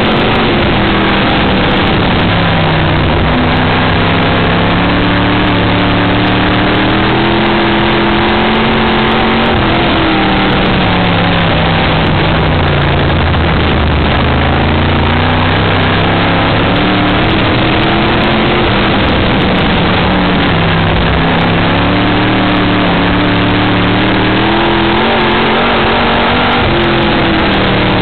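Open-wheel dirt-track race car's engine at racing speed, heard on board. The revs climb along each straightaway and drop off into the turns, several times over.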